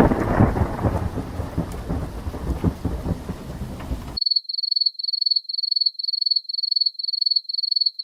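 Thunderstorm sound effect: a loud thunderclap rolling over steady rain. About four seconds in it cuts off abruptly, and a high-pitched electronic beep repeats about twice a second.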